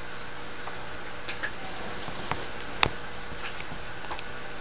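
Scattered small, irregular clicks and ticks over a steady hiss, with one sharper click a little past the middle.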